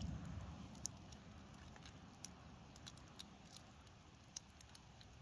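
Faint crackling of a driftwood campfire: a handful of sharp, scattered pops over a low rumble that fades in the first second or so.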